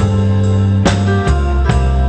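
Live pop band playing an instrumental passage, with bass, guitar and drums; chords change with a strong stroke about every second.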